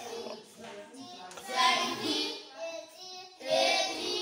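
A young child's voice counting aloud in a sing-song chant, one number-like phrase after another with short gaps, loudest about a second and a half in and again near the end.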